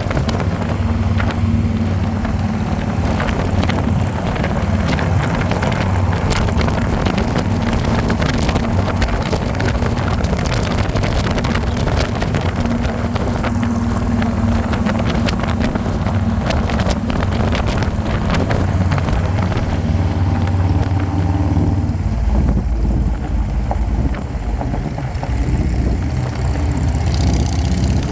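Harley-Davidson motorcycle riding at speed, its engine running steadily under heavy wind buffeting on the microphone. About three quarters of the way through the wind eases and the engine note stands out more.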